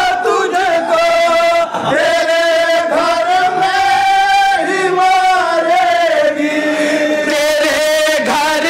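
Group of men chanting a manqabat, an Urdu devotional poem, in unison, a slow melodic line drawn out in long held notes.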